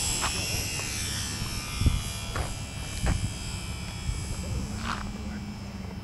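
Electric motor and propeller of a HobbyZone SuperCub RC airplane whining as it passes low and climbs away, the whine fading over the first few seconds. Wind rumbles on the microphone underneath.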